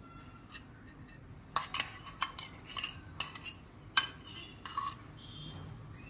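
Steel spoon clinking and scraping against steel dishes as melted ghee is spooned out of a small steel bowl, a string of light irregular clinks.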